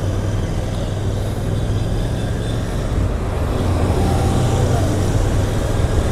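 Royal Enfield Interceptor 650's 648 cc parallel-twin engine running under way, with a steady low exhaust note over road and wind noise. It grows a little louder in the second half.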